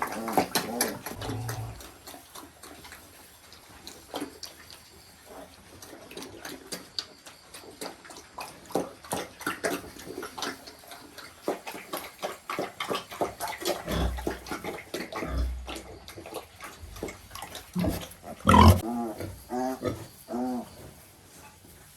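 Newborn piglets squealing and grunting in many short calls, with one louder squeal near the end.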